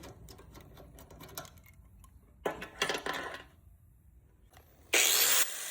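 Braided AN hose being cut through its tape wrap, with light metallic clicks and snips from the cutter and the wire braid. Near the end comes a short, loud hissing burst.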